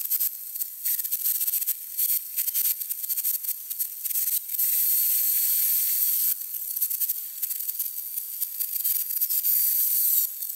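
Gravity-feed air spray gun hissing as paint is sprayed onto sheet-metal panels, in short stop-start bursts as the trigger is pulled and released, with a longer steady spray about five seconds in.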